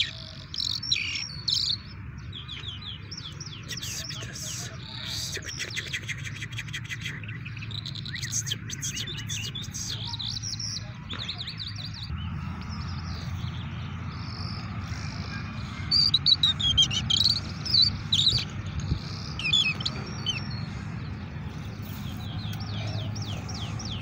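A songbird singing a string of high, quick chirps and rapid trills, with the busiest and loudest phrases about two-thirds of the way in. A steady low hum runs underneath.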